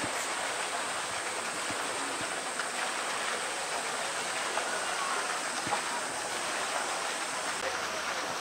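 Steady rushing water with splashing in a polar bear's pool as the bear swims and paddles.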